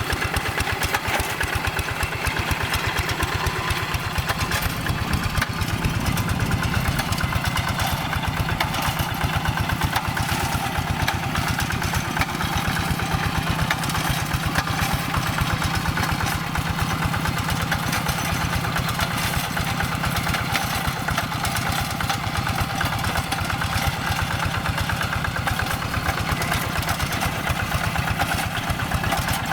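Two-wheel hand tractor's single-cylinder diesel engine running steadily with a fast, even firing beat while ploughing a flooded rice field. The engine's tone shifts slightly about five seconds in.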